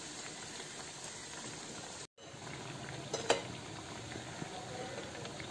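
Jackfruit seed vadas deep-frying in hot coconut oil, a steady sizzle of bubbling oil. The sound cuts out for a moment about two seconds in, and a little after three seconds the metal slotted spoon gives a couple of sharp clicks against the pan.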